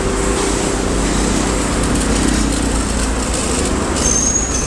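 Street traffic: a steady rumble of passing vehicles, with a brief high-pitched squeal about four seconds in.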